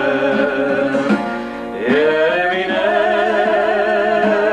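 A woman singing long held notes with vibrato over a strummed twelve-string acoustic guitar; a new note slides up into place about two seconds in.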